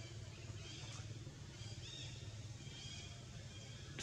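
Faint outdoor ambience: a steady low hum under short, high-pitched chirps about once a second, with a sharp click near the end.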